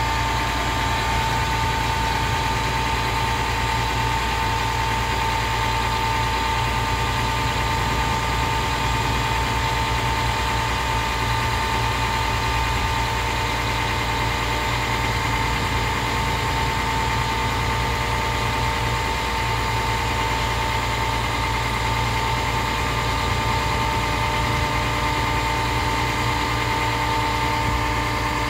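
Diesel engine of a truck-mounted concrete pump running steadily while it powers the hydraulics that move the boom, with a constant high whine over the engine's rumble.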